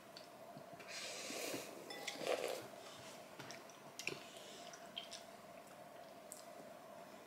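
Quiet eating sounds at a table: chewing and a few light clicks of a metal spoon on a plate, with a breathy noise about a second in, over a faint steady hum.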